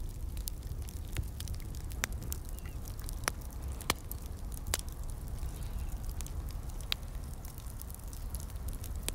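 Fire crackling: irregular sharp pops and snaps, a few louder ones near the middle, over a steady low rumble.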